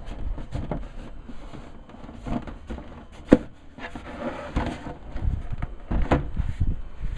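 Handling noise of a hard black plastic casing gripped and turned over close to the microphone: irregular knocks and rubbing, with one sharp click about a third of the way in.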